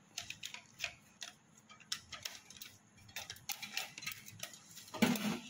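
Plastic-foil spice packet being handled and shaken over a mixing bowl: irregular light clicks and crinkles. A voice comes in briefly near the end.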